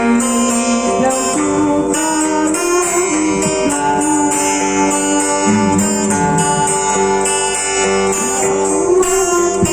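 Acoustic guitar playing the accompaniment to a Lampung song, with continuous strummed and plucked chords.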